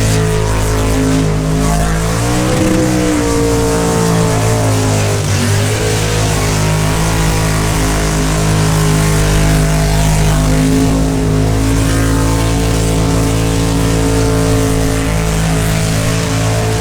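V8 car engine held at steady high revs in a burnout. The revs dip and climb back briefly about two seconds in and again around five seconds, over a constant hiss of tyre and crowd noise.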